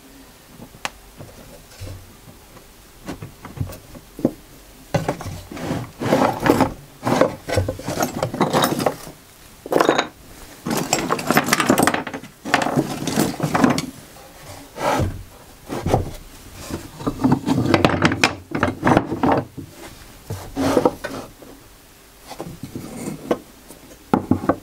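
Wooden router-fence pieces being handled and shifted on a workbench: irregular wood-on-wood scraping and rubbing with sharp knocks. The sounds are sparse at first and busy from about five seconds in.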